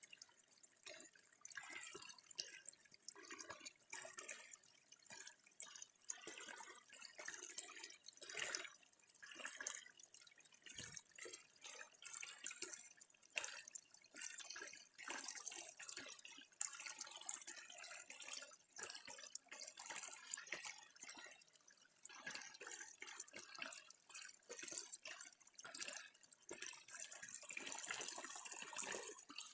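Water splashing and dripping in an irregular patter of small drops and splashes.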